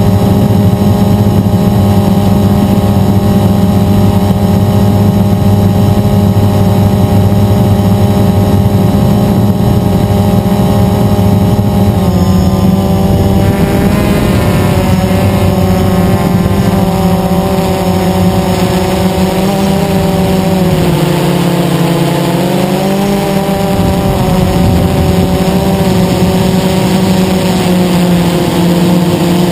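Blade 350 QX quadcopter's brushless motors and propellers humming steadily, heard from its onboard camera. The pitch of the hum shifts about halfway through, then dips and comes back up about two-thirds of the way through.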